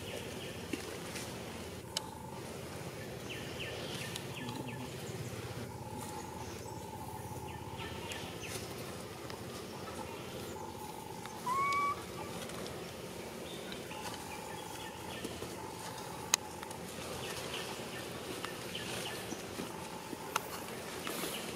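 Quiet outdoor ambience with a faint tone that comes and goes. About halfway through comes a single short rising squeak, an animal call.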